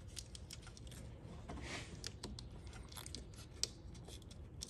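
Faint clicks and rustling from hands handling a spliced headlight wiring harness and its plastic socket, with one slightly sharper click a little past halfway.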